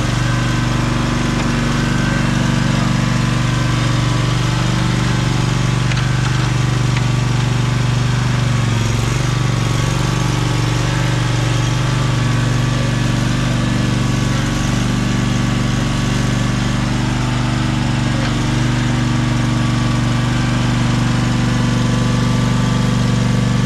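Commercial lawn mower's engine running at a steady speed, an even drone with no change in pitch.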